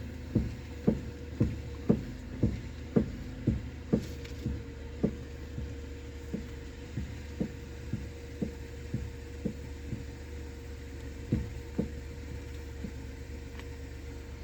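Honda Life Dunk JB3's steering gearbox knocking about twice a second, loudest in the first few seconds and then softer, over a steady hum. The knocking is the abnormal noise of a failed rebuilt steering gearbox, bad enough that the car won't track straight or pass inspection.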